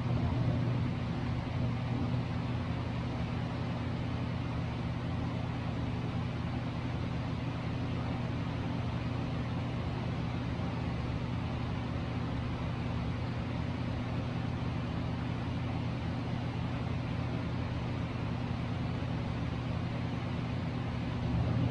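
A steady, low mechanical hum with an even hiss over it, unchanging throughout.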